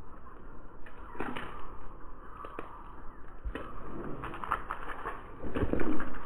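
Footsteps scuffing and tapping on a concrete driveway littered with dry seeds and leaves, with irregular clicks and thumps that are loudest near the end.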